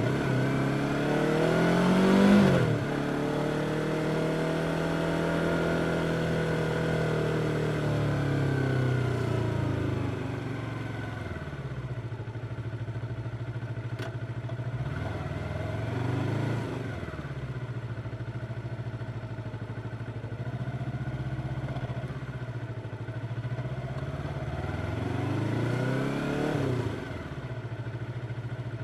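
Yamaha R25's parallel-twin engine running: revs climb to a peak about two seconds in, then ease off and settle lower. Later it runs steadily at low revs, with two brief rises and falls, one midway and one near the end.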